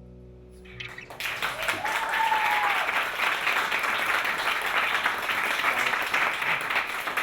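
The band's last held chord dies away, and about a second in an audience breaks into steady applause, with one brief high call over the clapping.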